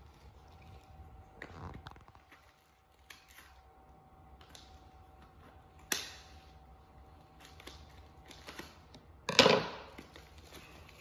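Scissors cutting open a plastic-wrapped packet, with scattered snips and rustling of the wrapper. There is a sharp click about six seconds in and a louder crinkling burst of the wrapper near the end.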